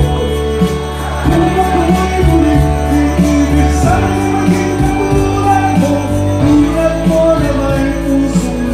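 A man singing into a microphone over amplified backing music with a steady beat; the voice comes in about a second in.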